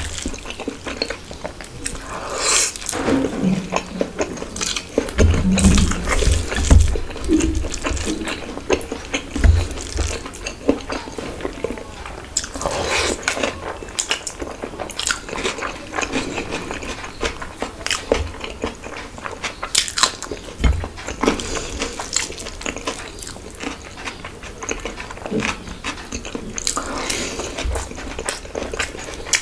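Close-miked eating of bhuna khichuri by hand: wet chewing and lip smacks, with fingers squishing and scooping the rice on the plate. The wet clicks come irregularly all through.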